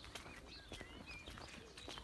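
Small birds chirping and singing in short wavering phrases, with a person's footsteps as faint clicks.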